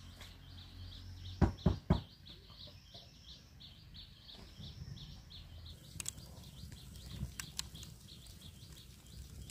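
Three loud thuds in quick succession about a second and a half in, over a high chirping that repeats about three times a second, with a few sharp clicks later on.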